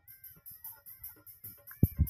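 Dhol drum music with a quick, steady jingling beat of about four to five strokes a second. There is one loud low drum stroke near the end.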